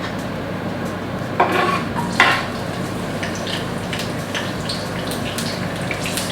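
Kitchen cookware and metal utensils clinking and scraping, with two louder clanks about a second and a half and two seconds in, over a steady hiss.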